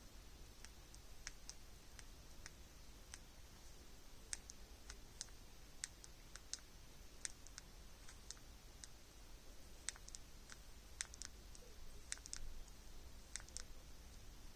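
The folding screen of a Samsung Galaxy Z Flip 6 making faint, irregular popping clicks, about thirty of them, sometimes two or three in quick succession. It is a screen issue that the owner considers abnormal for a three-month-old phone, though some have been told it is normal.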